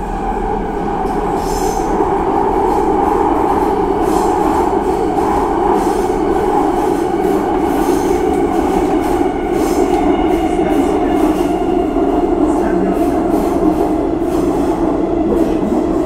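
A subway train running at speed over the tracks through a tunnel, heard from inside the carriage. It makes a steady, loud rumble with a droning hum and wheel noise, with faint clacks over the rails. The sound builds up over the first couple of seconds and then holds steady.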